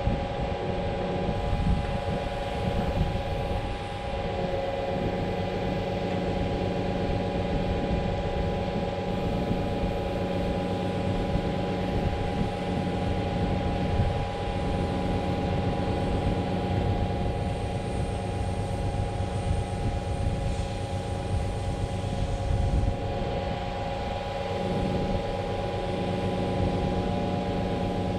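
Truck-mounted concrete boom pump's diesel engine running steadily, a constant hum of several fixed tones over a low rumble.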